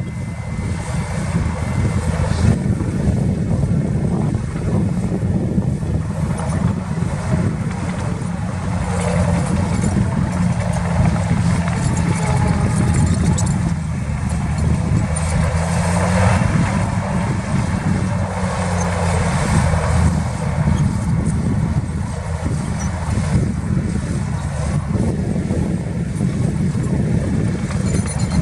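Diesel engines of heavy earthmoving machinery running continuously while working soil, the engine note rising and falling a little with load.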